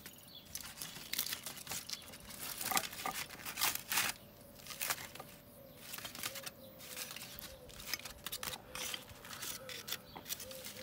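Aluminium foil crinkling with irregular clicks and scrapes of a knife and fork, as a foil-baked potato is cut open and broken up on a plate.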